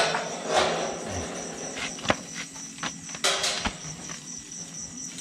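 Hinged wire grill basket being handled and opened over a metal tray: a few sharp metal clicks and knocks amid rustling, with crickets chirping steadily in the background.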